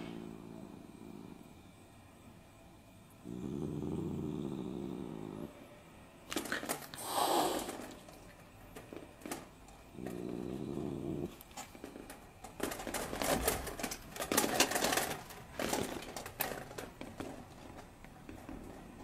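Domestic cat growling low in long drawn-out growls, three times, with a louder rising yowl about seven seconds in. Then a flurry of sharp knocks and scuffling for a few seconds.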